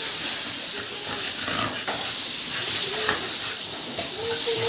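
Hose spray nozzle hissing steadily as a fine water spray rinses soap off dogs through the bars of a stainless-steel kennel cage, with a few brief faint whines from a dog.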